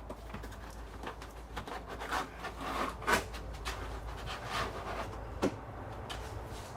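Rubber door window seal being worked loose by hand: a run of short rubbing and scraping strokes against the door and glass, with sharper clicks about three seconds in and again near five and a half seconds.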